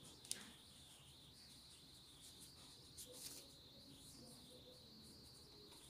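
Near silence with a faint steady high hiss. A sharp click comes just after the start and soft rustles about three seconds in as a sewn cloth mask is handled and turned right side out.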